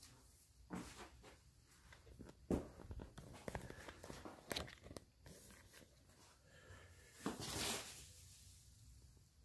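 Faint rustling of packing paper and light clicks as the carbon-fibre frame and its parts are handled, with a louder swish about seven seconds in.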